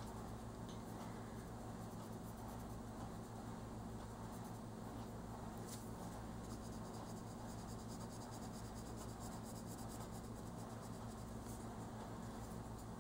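Faint scratching of an oil-based colour pencil shading on coloring-book paper, in many quick back-and-forth strokes that grow thicker from about halfway in. A steady low hum runs underneath.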